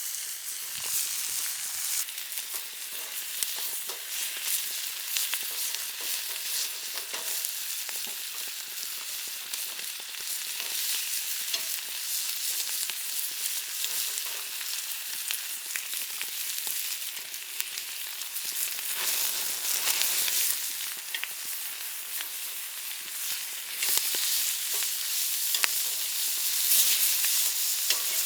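Steady sizzling and crackling over a wood-burning fire pit, with many small pops; it grows louder about 24 seconds in.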